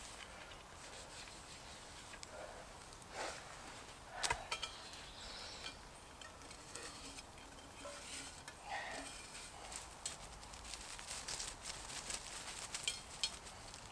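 Faint rustling of leaf litter and soil as it is scraped by hand, with a few light clicks and knocks of metal camp gear being handled. The sharpest knock comes about four seconds in.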